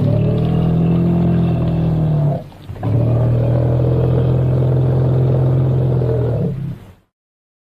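Vintage film triceratops sound effect: two long, low, steady monster calls, the second one longer, at about four seconds.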